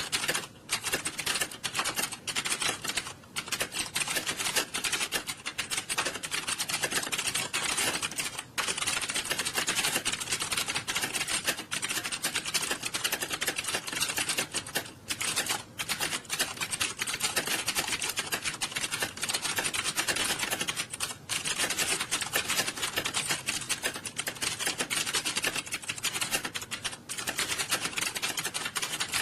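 Many computer keyboards being typed on fast at once in an exam hall during a typing test, a dense, continuous clatter of overlapping key clicks with only brief lulls.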